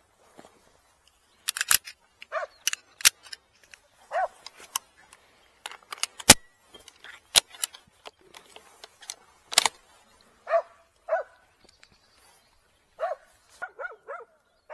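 Hunting dogs barking in short, scattered barks, a quick run of them near the end, mixed with sharp cracks and snaps, the loudest about six seconds in.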